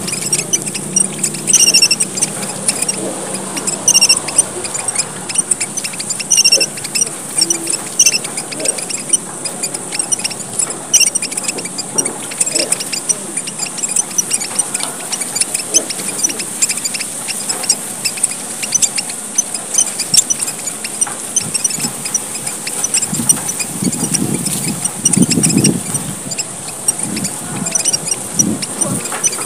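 A flock of emprit merah papua (small red finches) chirping and twittering busily and continuously, the lively 'gocar' chatter used as a lure call. A clear high call repeats about every two seconds through the first ten seconds, over a steady mass of thin high tweets.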